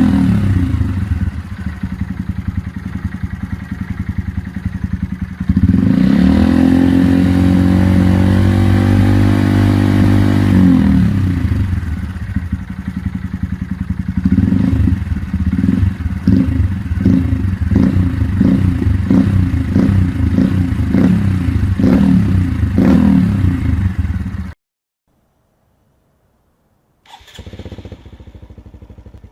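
Honda MSX125 (Grom) 125 cc single-cylinder four-stroke running through an aftermarket exhaust. It idles, is revved up and held for several seconds before dropping back, then gives a run of quick throttle blips. The sound cuts off abruptly, and after a gap a quieter engine starts up near the end.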